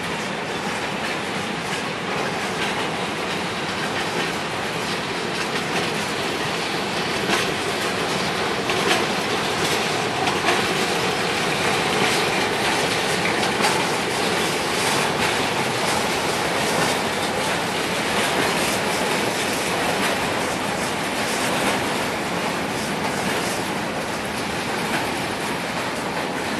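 Covered hopper cars of a freight train rolling past: a steady rumble of steel wheels on rail, with irregular clicks as the wheels cross rail joints.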